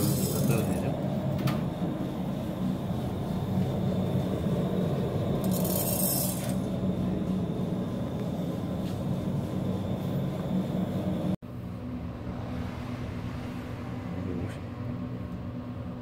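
Electric stone grain mill running with a steady motor hum while grinding buckwheat into flour, with two brief hisses near the start and about six seconds in. The sound cuts out for an instant about eleven seconds in and then carries on slightly quieter.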